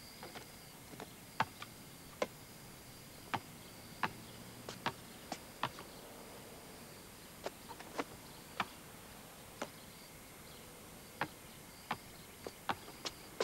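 A basketball bouncing on asphalt and striking a wall-mounted backboard and rim: some two dozen sharp thuds at uneven spacing, some in quick pairs.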